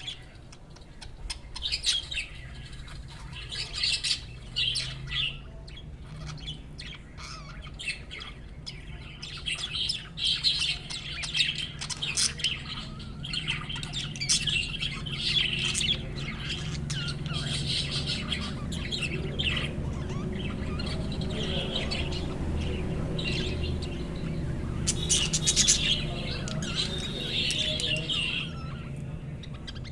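Budgerigars chirping and warbling in a busy, continuous stream of short chirps and squawks. Beneath them is a low steady hum that gets stronger about halfway through.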